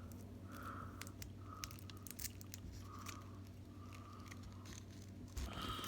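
Faint handling noise from a Velcro tie being threaded and fiddled with: scattered small clicks and rustles.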